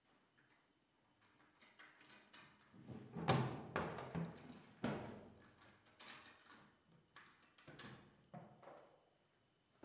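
A wooden desk drawer sliding open and hands rummaging through its contents: a run of irregular knocks and scrapes, loudest about three seconds in.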